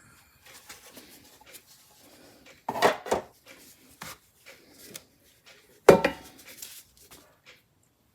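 Metal tins being handled and set down on a wooden shelf: scattered light clicks and clinks, a louder clatter about three seconds in and a sharp knock with a short ring about six seconds in.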